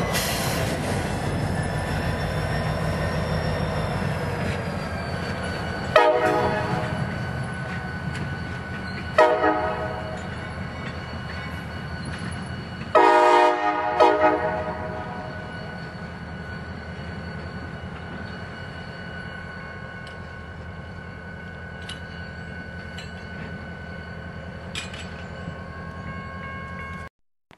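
Freight train rumbling past on the rails, loud at first and then fading, while a CSX diesel locomotive's air horn sounds three times: two short blasts about three seconds apart, then a longer blast.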